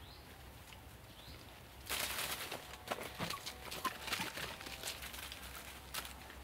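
Puppies' paws pattering and scrabbling on the dried-mud steps of a dog house: a quick, irregular run of small footfalls and scratches starting about two seconds in and stopping near the end.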